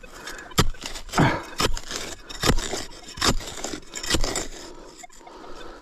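A digging tool scraping and stabbing into dirt in a hole in repeated, irregular strokes, digging down to a deep metal-detector target.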